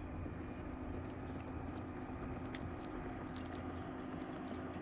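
Steady low hum with a faint steady whine, typical of a kayak's electric trolling motor running, over a soft wash of wind and water.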